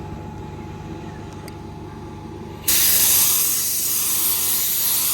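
Compressed-air spray gun hissing with the trigger pulled, laying a light dust coat of 2K clear onto a headlight lens. The hiss starts suddenly about two and a half seconds in, over a low steady background hum.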